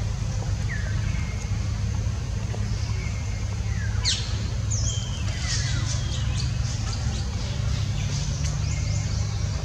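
Birds chirping, a scattering of short, high falling calls that grow busier after about four seconds, over a steady low rumble.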